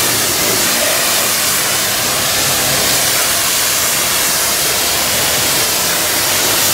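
Pressure-washer lance spraying a high-pressure water jet onto a truck's cab: a steady hiss.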